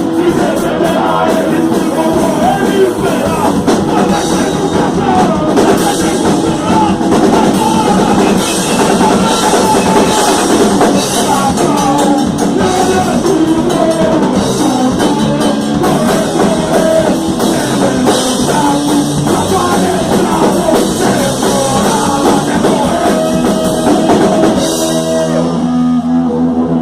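Rock band playing live: drum kit, guitars and singing, loud and dense. About 25 seconds in the drums stop and a held chord rings on as the song ends.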